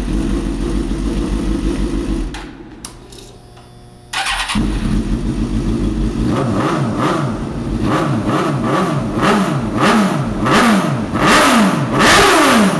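2005 Suzuki GSX-R750 inline-four running through a cut-down Yoshimura exhaust. The sound drops away about two seconds in and comes back abruptly about four seconds in. It is then revved in a string of quick throttle blips, each rising and falling in pitch, getting louder toward the end.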